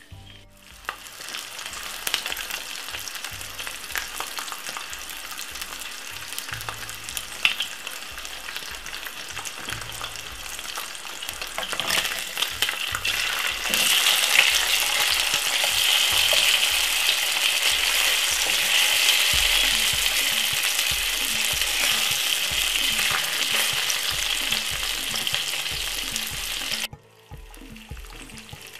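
Two thick slices of bacon sizzling and spitting in olive oil in a frying pan. The sizzle gets louder about halfway through and cuts off suddenly near the end.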